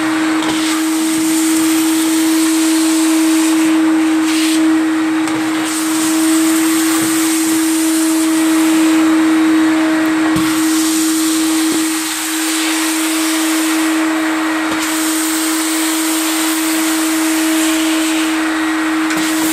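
Wet-and-dry vacuum cleaner running steadily with a constant hum, its floor nozzle sucking dirty cleaning water up off ceramic tiles.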